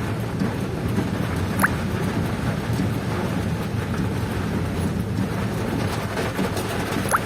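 Heavy rain falling on a moving vehicle, with a steady low rumble of road and wind noise. Two short sharp ticks come through, about a second and a half in and again near the end.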